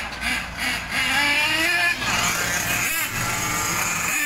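Radio-controlled car's motor whining as it drives along the road, its pitch rising about a second in as it speeds up, over the low running of passing motorcycles.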